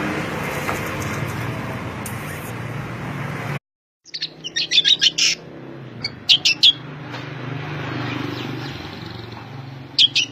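Steady background noise cuts off abruptly about three and a half seconds in. After a short gap a songbird gives clusters of short, sharp, loud chirps a second or more apart over a faint low hum.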